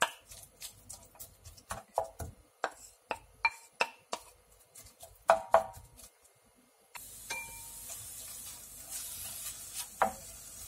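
A wooden spatula knocks and clicks against a bowl and a frying pan as seasoned pork belly slices are scraped into the pan. About seven seconds in, a steady sizzle of the pork frying sets in, with a few more spatula knocks as the meat is stirred.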